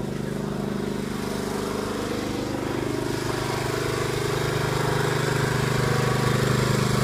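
A small engine running steadily at a constant speed, growing gradually louder.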